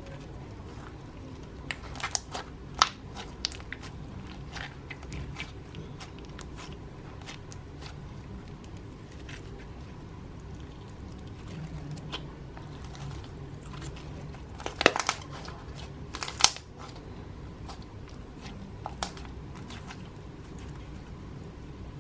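Slime being squished and worked by hand, giving scattered sharp pops and crackles, with small clusters about two seconds in, around the middle of the second half, and once more near the end.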